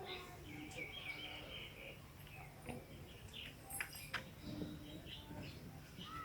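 Birds chirping faintly in short high calls, with a few sharp clicks about four seconds in.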